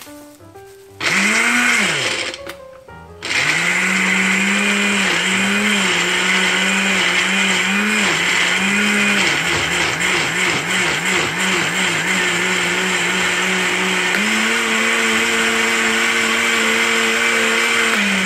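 Black & Decker countertop blender given a short pulse about a second in, then run continuously, chopping chunks of tomato, onion and peppers with a little water into salsa. The motor's pitch wavers as chunks catch the blades, then steadies and steps up about fourteen seconds in as the mix turns smooth.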